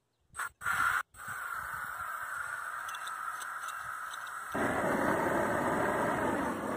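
Large propane torch on a hose from a propane tank being lit: a few short bursts as it catches, then the steady hiss of the burning flame, which becomes louder and fuller about four and a half seconds in.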